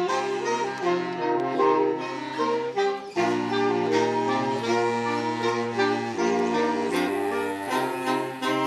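Instrumental music: a reedy wind instrument plays a melody in held chords over sustained low notes, changing chord every second or so.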